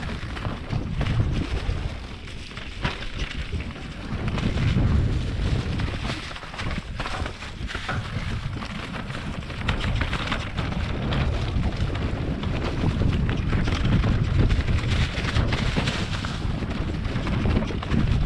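Mountain bike descending a dry, rocky trail: tyres crunching over dead leaves, dirt and loose stones, with frequent small knocks, under heavy wind buffeting on the camera microphone.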